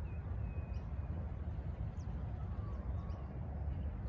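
Steady low rumble of wind on the microphone, with a few faint bird calls chirping now and then.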